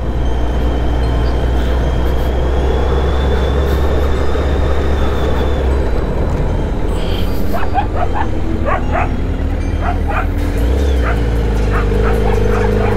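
Motorcycle engine running at a steady low note under wind rush. About seven seconds in, a dog starts barking: a string of short barks over the next five seconds.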